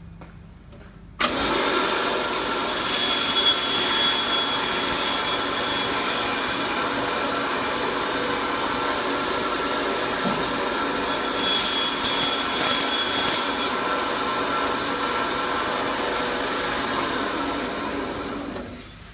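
Butcher's meat bandsaw switched on about a second in and running steadily as it cuts slabs of flat ribs through meat and bone, with two stretches of harsher high-pitched sound; it dies away near the end.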